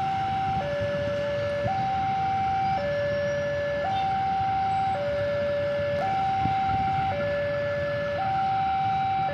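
Two-tone electronic warning siren alternating evenly between a higher and a lower note, each held about a second, at a steady level.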